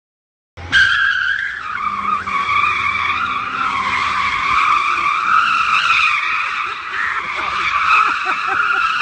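Tyres of an electric-converted Ferrari 308 GTS squealing continuously as it spins donuts, the pitch wavering up and down; the squeal starts abruptly about half a second in.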